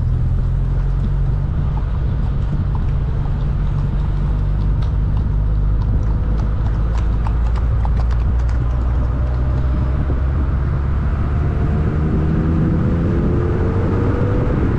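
Car engine and road noise heard from inside a moving car, a steady low drone. A few light ticks come in the middle, and near the end the engine note rises as the car accelerates.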